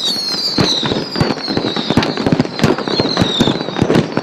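A large multi-shot box of fireworks, set off upside down, firing a rapid volley of launches and bangs mixed with repeated falling whistles. The recoil has tipped the box over, so the tubes are firing flat along the ground.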